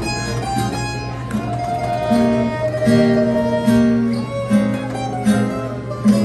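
Acoustic string band playing a swing tune: a fiddle carries held melody notes over rhythmic chords from two acoustic guitars and an upright bass.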